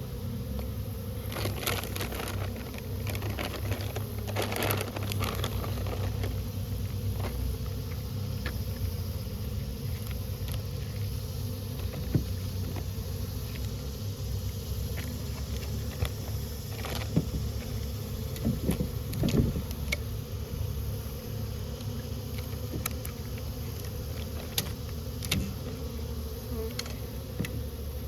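A mass of honeybees from a cut-out colony buzzing with a steady low hum, with scattered clicks and knocks throughout.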